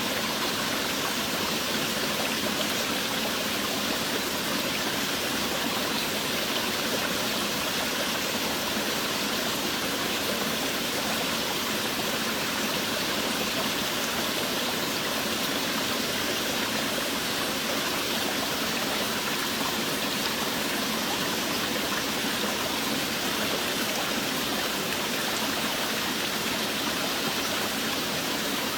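Steady heavy rain: an even, unbroken rushing hiss with no separate drops, thunder or other events standing out.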